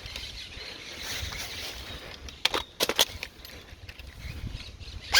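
Steady noisy hiss of movement, with three sharp snaps of airsoft gunfire about two and a half to three seconds in and a louder snap at the very end.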